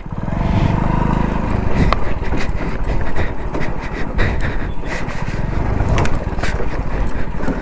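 Hero Splendor's 100cc single-cylinder engine running at low speed as the motorcycle rides over a rough, rocky off-road track, with scattered knocks and rattles from the bike jolting over stones. The rumble starts suddenly at the beginning.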